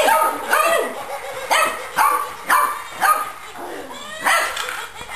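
Boxer puppy barking, a string of short yappy barks about every half second, with a pause near the end.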